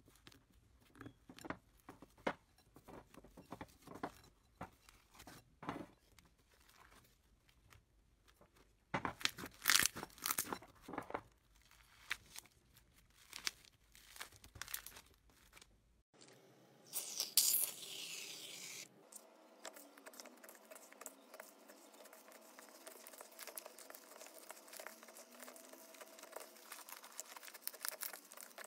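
Slime worked by hand: sticky clicks and crackling pops as it is pressed and pulled apart, a louder tearing burst about two-thirds of the way in, then a fine, steady crackle as a thick slime is kneaded.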